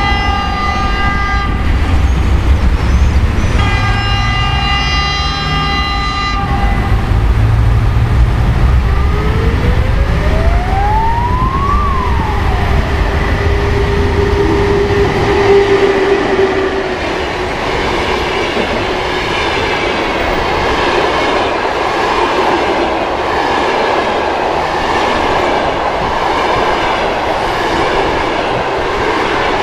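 EP1M electric locomotive passing with a passenger train: its horn sounds two blasts, a short one and then a longer one, and a whine rises and falls as the locomotive comes by. Then the passenger coaches run past with the steady clickety-clack of wheels over rail joints.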